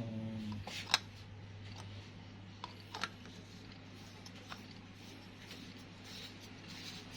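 A few sharp clicks and taps of a washing-machine hose connector being handled and fitted onto a tap, the loudest about a second in, over a steady low hum.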